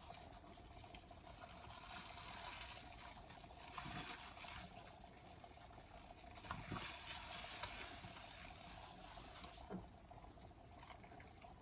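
Faint trickling of liquid, with a few soft knocks and handling noises.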